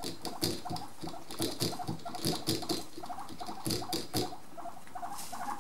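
Guinea pig drinking from a water bottle's metal spout: a run of small sharp clicks from its tongue working the spout, about three a second.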